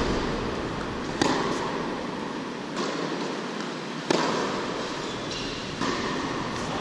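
Tennis rally on an indoor hard court: sharp pops of the ball off racquet strings and court, about six over a few seconds, ringing in the hall. The loudest pop comes about four seconds in, a forehand struck close by. A steady hall noise runs underneath.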